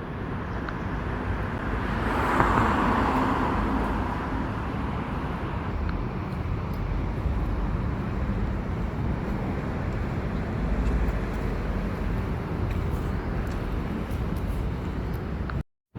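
Steady road traffic noise, with one vehicle passing and swelling louder about two to four seconds in. The sound cuts out abruptly for a moment near the end.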